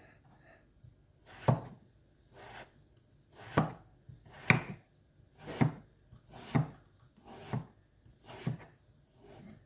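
Chef's knife slicing down through a peeled raw potato, one cut about every second, nine in all. Each stroke stops on the wooden spatula handles laid on either side of the potato, leaving hasselback slits rather than cutting through.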